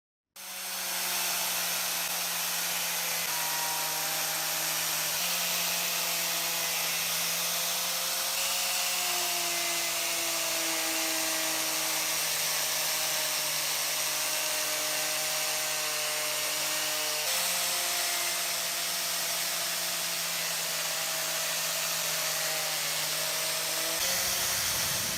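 Electric power tool running steadily, starting abruptly just after the beginning. Its motor tone shifts slightly in pitch a few times, as when the tool's load changes.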